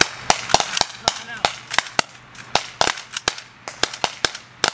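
Several rifles firing at once in a ragged, uneven volley: sharp shots come about four a second, some overlapping, as a squad engages targets.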